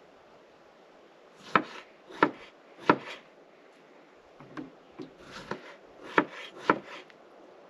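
Kitchen knife slicing strawberries on a wooden cutting board: sharp knocks of the blade on the board, three loud ones starting about a second and a half in, a few softer cuts, then two more loud knocks near the end.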